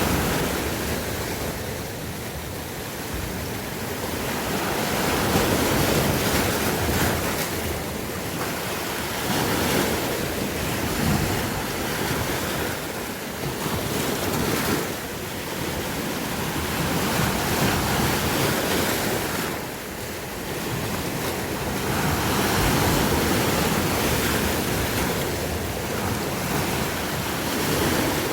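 Ocean waves breaking and washing on the shore, the surf swelling and easing every few seconds, with some wind on the microphone.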